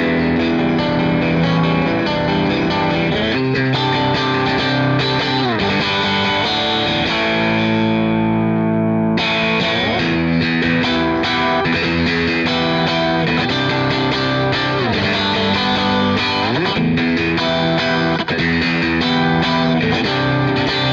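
Shergold Masquerader SM03-SD electric guitar played through a crunch overdrive tone, with the pickup selector in position 2 (Seymour Duncan Vintage STL-2 and SSL-2Rw single coils): a continuous rock guitar part with slides. About seven seconds in, a chord is left to ring for about two seconds, its treble fading, before the playing starts again.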